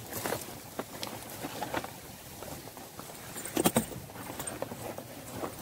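Hunting gear being handled and packed by hand: rustling of bags and clothing with scattered clicks and knocks, the loudest a short cluster of knocks about three and a half seconds in.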